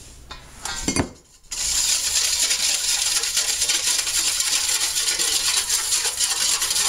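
Wire whisk beating a vinegar and sugar dressing in a stainless steel mixing bowl: a fast, steady scraping and clinking of the wires against the metal, starting about a second and a half in.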